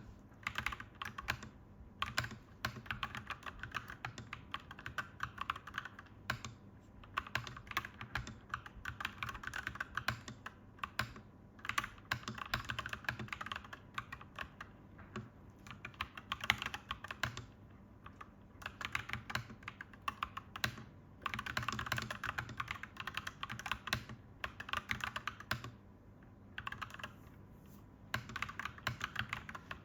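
Clacky mechanical keyboard being typed on in fast runs of keystrokes, broken by short pauses every few seconds. A faint steady hum runs underneath.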